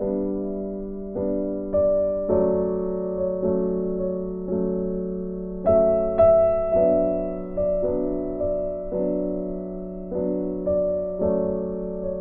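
Background music: a slow, gentle keyboard melody, its notes struck about once a second and left to fade.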